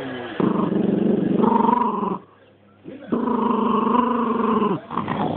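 A dog growling over the lamb bone it is chewing: two long, low growls with a short pause between them. It is guarding the bone.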